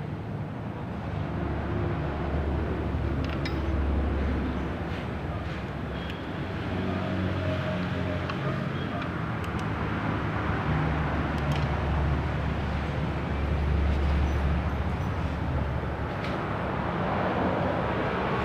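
Low engine rumble of vehicles passing, swelling and fading over several seconds, with a few light clicks.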